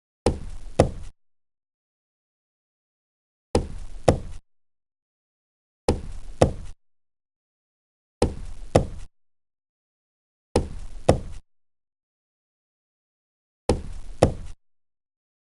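Knocking on a wooden table: six short double knocks, two sharp raps about half a second apart each time, with dead silence between the takes.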